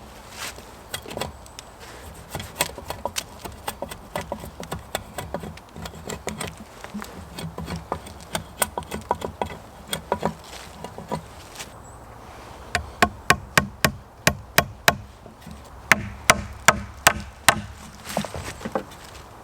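A long series of sharp clicks and knocks, scattered at first, then a run of louder, evenly spaced strikes about three a second in the second half.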